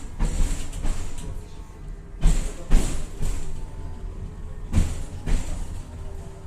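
Tatra-Yug K1M tram running, heard from inside the car: a steady low rumble with two pairs of sharp knocks, each pair about half a second apart.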